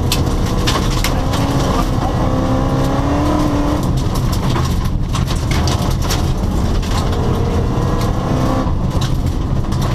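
Rally car engine running and revving, with pitched engine notes that shift about 1 to 4 seconds in, over a constant low rumble. Frequent short crackles run through it.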